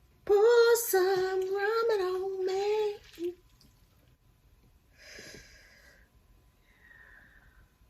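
A woman humming a held, slightly wavering note for about three seconds, followed a couple of seconds later by two faint hisses.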